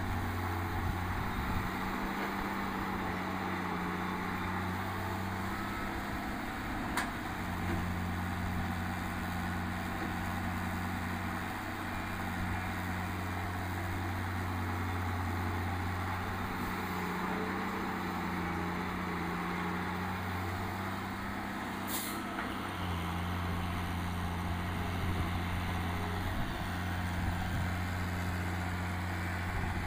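Hitachi 160 wheeled excavator's diesel engine running under changing load as it digs and swings, its steady hum falling away and returning several times. A short sharp hiss of air comes about two-thirds of the way through.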